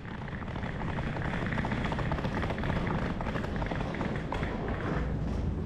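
Footsteps and suitcase wheels rolling and rattling over paving and tiles, a dense irregular clatter with a low rumble.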